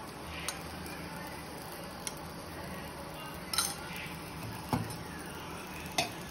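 Metal kitchen utensil clinking about five times against the tawa and oil container while oil is put on a chapati cooking on a hot iron tawa, over a steady low hum.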